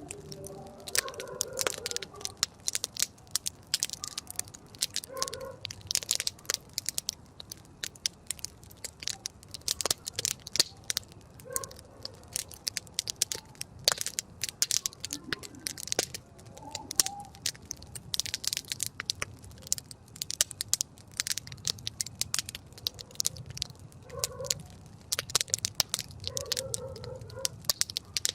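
Wood campfire crackling, with many sharp, irregular pops and snaps.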